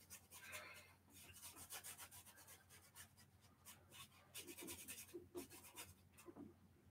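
Faint, scratchy strokes of a paintbrush on canvas laying on acrylic paint, many short strokes one after another.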